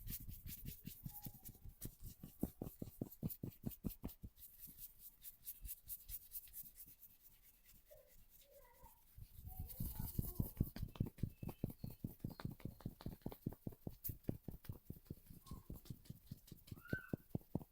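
Hand percussion massage: quick tapping or chopping strokes on the body, about five or six strikes a second, lighter for a few seconds in the middle and firmer again from about halfway.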